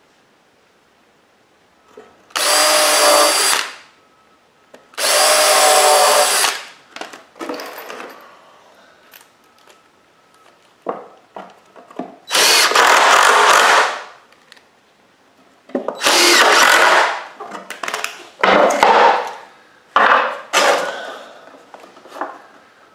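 Power drill driving screws into wooden boards in about six short runs of a second or two each, the first two with a steady motor whine and the later ones noisier, with small knocks of wood and handling between them.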